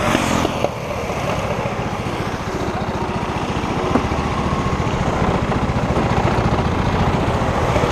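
Go-kart engines idling in the pit lane: a steady, fast pulsing engine note that grows slightly louder over the seconds.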